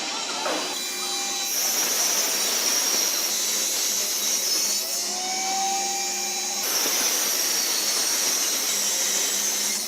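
Electric woodworking power tool running steadily and cutting wood, its motor whine rising and settling about halfway through.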